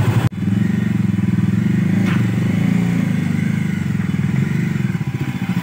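Bajaj Dominar 400's single-cylinder engine running at low speed with a fast, even exhaust pulse. The sound breaks off for a moment just after the start, then runs on steadily.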